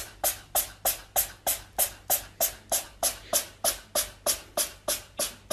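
A tabby cat, mouth open, making a steady run of short breathy huffs, about three a second, as even as a beat.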